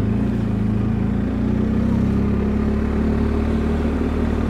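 BMW R1250 motorcycle's boxer twin engine running steadily as the bike rides along, heard from the bike-mounted camera.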